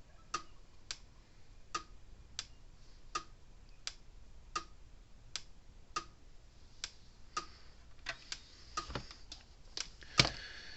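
Gallagher M800 electric fence energizer clicking with each output pulse: sharp, regular ticks a little under a second apart, running with its ground lead disconnected. Near the end the ticks turn irregular, with two dull thumps.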